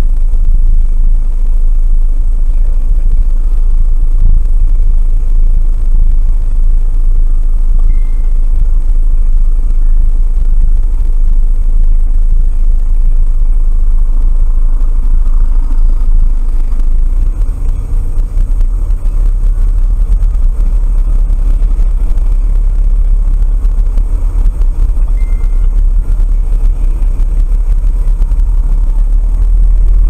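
Steady low rumble of a car engine idling, heard from inside the cabin through a dash cam's microphone.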